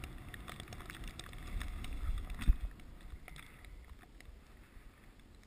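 Dogsled running over soft snow: a low rumble of the runners with wind on the microphone, louder for a moment in the middle, and scattered light clicks. One sharp knock about two and a half seconds in, the loudest sound.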